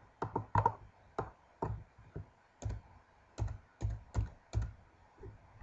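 About fifteen irregular sharp clicks and taps at a computer, from mouse buttons and keys, while working through menus and a list dialog.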